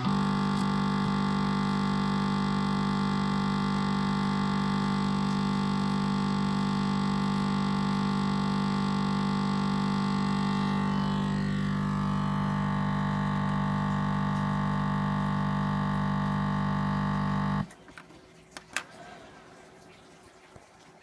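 Music: one long held chord that rings steadily, with a slight sweep through its upper tones about ten seconds in, then cuts off suddenly near the end, leaving faint background noise and a couple of small clicks.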